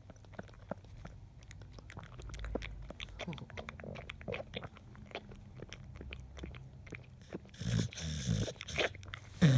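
Sleeping pit bull dreaming, making many small clicking mouth and lip noises over low breathing, with a louder snore about eight seconds in.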